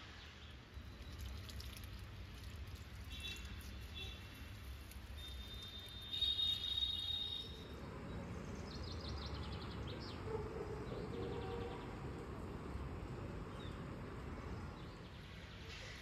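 Outdoor ambience with short, high bird chirps, loudest about six seconds in. From about eight seconds on, the background grows noisier, with faint rapid chirping.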